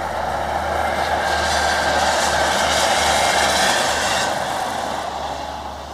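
Two-car diesel passenger train crossing a stone-arch railway bridge, its wheels and engine rising in level to a peak in the middle and fading as it moves away.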